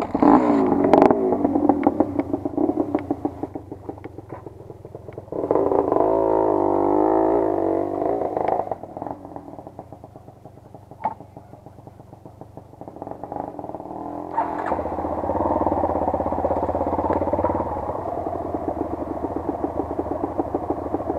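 Off-road motorcycle engines running at low trail speed, the revs rising and falling with the throttle; the engine note is loudest about five seconds in and again from about fourteen seconds on, with a quieter lull between and a few sharp knocks.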